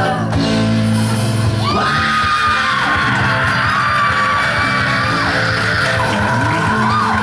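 Live rock band playing, with long held notes that bend in pitch over steady bass and chords.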